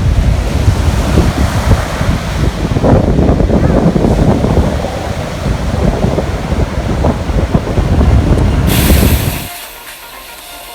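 Strong wind buffeting the microphone in gusts, with ocean surf underneath. The sound cuts off suddenly near the end.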